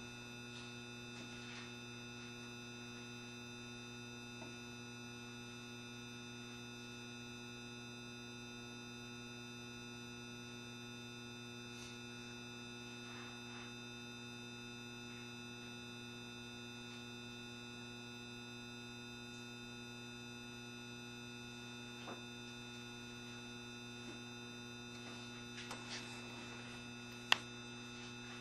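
Steady electrical hum of several fixed tones from the 7200 series train's on-board equipment, with the train standing still and no wheel or motor noise. A few faint clicks are heard, and one sharp tick comes about a second before the end.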